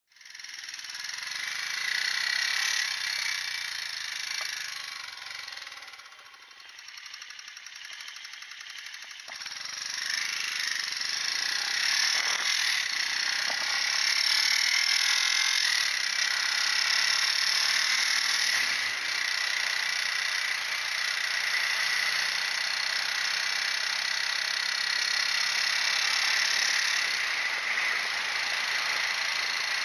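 Motorcycle engine running under a steady rush of wind noise. It drops for a few seconds about six seconds in, then comes back louder.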